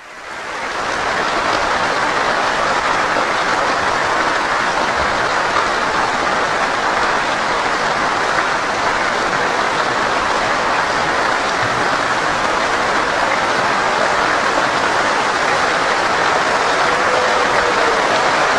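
Crowd applauding: dense, steady clapping with no single claps standing out, fading in over the first second.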